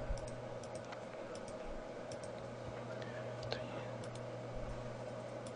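Faint, scattered clicks of a computer mouse and keyboard keys as edges are selected and a menu is called up, over a steady low hum from the microphone.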